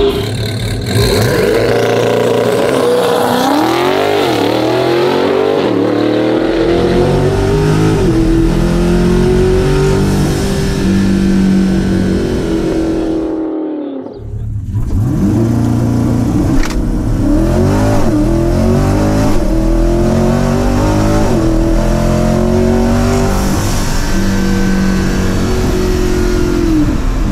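Twin-turbo pushrod V8 of a C8 Corvette accelerating hard at full throttle, its pitch climbing and dropping sharply at each upshift; about halfway through the sound cuts briefly and resumes heard from inside the cabin. The engine is breaking up under load; the driver says it sounded like it was running on seven cylinders and suspects bad spark plugs.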